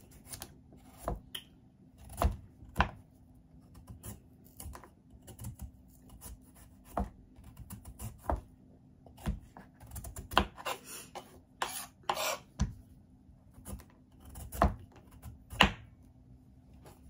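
Small kitchen knife slicing pieces off a peeled green mango over a wooden cutting board: irregular sharp clicks as the blade cuts through and slices drop onto the board, with a few longer scraping cuts about two thirds of the way through.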